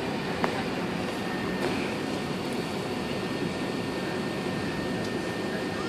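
Steady cabin noise inside an Airbus A380 on the ground: an even rumble of jet engines and air conditioning, with a faint steady high tone coming in just under two seconds in.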